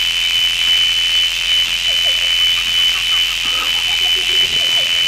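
A steady, high-pitched electronic tone over a hiss, like a sustained ringing sound effect, with faint short chirps joining from about two seconds in.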